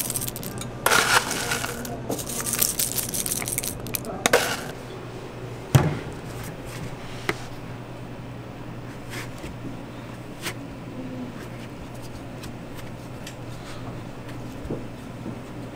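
Cornflakes and other dry toppings pattering and crackling as they are scattered onto a crepe for the first few seconds, then a sharp knock. After that, quieter scraping of a metal ice cream scoop through a plastic tub of vanilla ice cream, with a few light clicks over a steady low hum.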